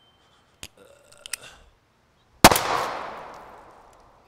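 A few small clicks and rustles, then a single loud gunshot about two and a half seconds in, its echo dying away over a second or so.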